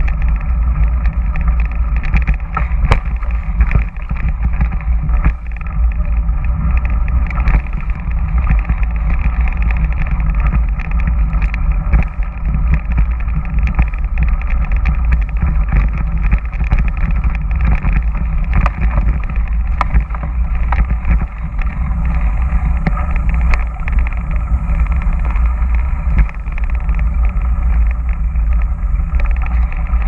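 Mountain bike riding a rough dirt singletrack, heard from a bike-mounted camera: a steady low rumble of wind and motion on the microphone, with frequent knocks and rattles as the bike goes over bumps.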